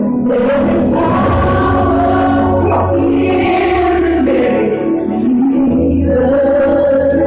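Gospel song with a choir singing long held notes over a steady instrumental accompaniment.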